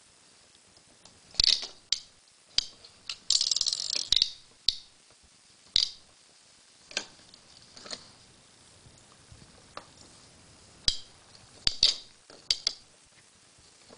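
Plastic spinning rollers on a baby's ExerSaucer toy bar clicking and rattling as a baby's hands turn and knock them, in short irregular bursts with a longer run of rattling a few seconds in.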